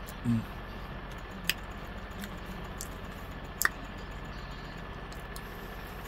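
Metal fork handling food at a meal: two sharp clicks about two seconds apart, with a short low vocal sound from the eater just after the start. Steady background hum throughout.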